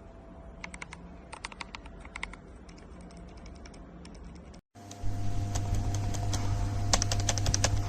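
Typing on a mechanical keyboard fitted with Outemu silent switches: irregular runs of soft keystroke clicks. About two-thirds of the way through the sound briefly drops out, then comes back louder, with faster keystrokes over a steady low hum.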